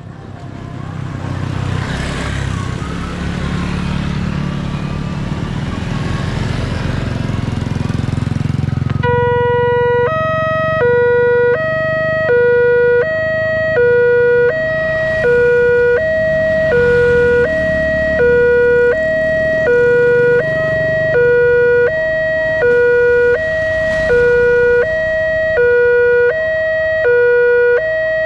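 A train passing with a loud rushing rumble, followed about nine seconds in by the level-crossing warning alarm, an electronic two-tone signal alternating about once a second and continuing steadily.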